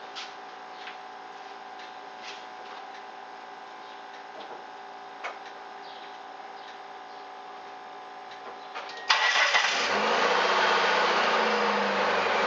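1994 Mitsubishi Eclipse engine starting on its old spark plugs. After about nine seconds of faint steady hum, it fires with a sudden jump in loudness, then runs steadily at idle.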